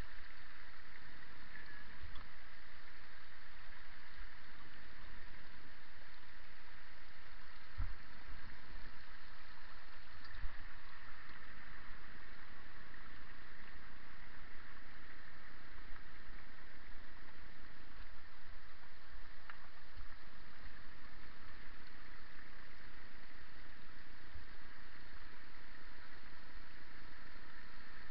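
Bicycle rolling down a rocky, wet track beside a mountain stream: a steady rushing noise with scattered low knocks as the wheels jolt over stones.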